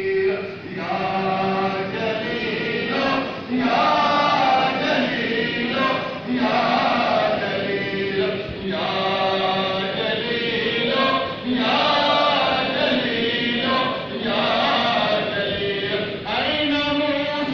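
Congregation of men chanting a dua (Islamic supplication) together, in long melodic phrases with short breaks between them.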